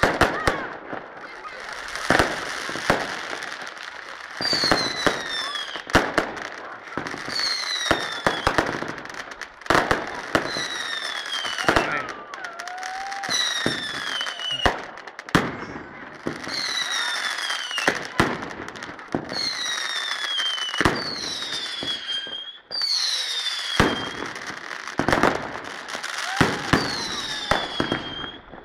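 Fireworks going off: frequent sharp bangs with crackle between them. From about four seconds in, a high whistle that falls in pitch recurs every second or two.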